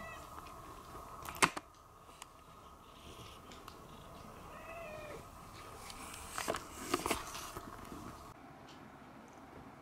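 Domestic cat giving a short, quiet meow about five seconds in. There is a sharp click about a second and a half in, the loudest sound, and a few more clicks around seven seconds.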